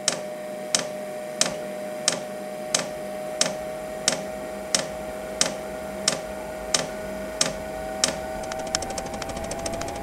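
Vevor 5 kW diesel heater starting up: its fuel dosing pump clicks at an even pace, about three clicks every two seconds, over the steady whine of the heater's fan. Near the end the clicking turns quicker and fainter and the whine begins to rise as the heater comes up through its startup cycle.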